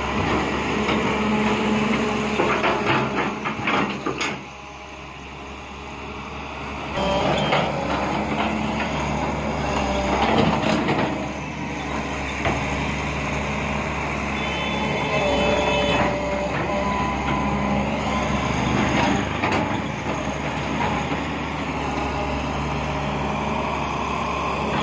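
Caterpillar 320L hydraulic excavator's diesel engine running under working load while the bucket digs and scrapes through sand and gravel, with a few bursts of metallic clatter. The sound drops for a couple of seconds about four seconds in, then comes back up.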